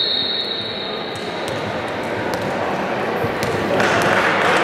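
A referee's whistle blast tails off about a second in, followed by a basketball bouncing on the court floor with a few sharp knocks. Indistinct voices of players and spectators run through it and grow louder near the end.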